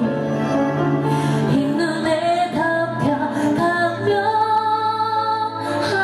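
A woman singing a slow ballad live into a hand-held microphone over instrumental accompaniment. Her voice slides between long held notes.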